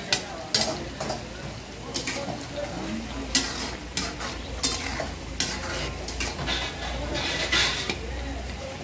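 Long metal ladles scraping and knocking against steel karahi woks as chicken karahi is stirred, in quick irregular strokes over a steady sizzle. Underneath is the low, steady rush of the gas burners.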